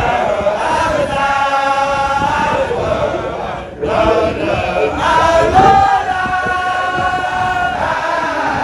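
A group of Baye Fall men chanting together in unison, a devotional zikr chant with long held notes. There is a brief break about four seconds in, then another long held phrase.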